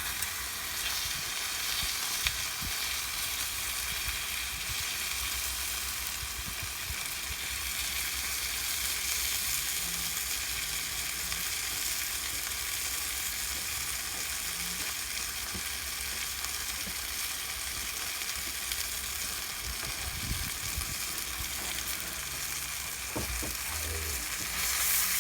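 Steak sizzling steadily as it cooks over a fire pit.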